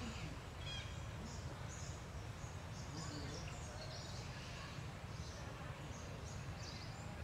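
Outdoor forest ambience: a steady low rumble with scattered short, high bird chirps.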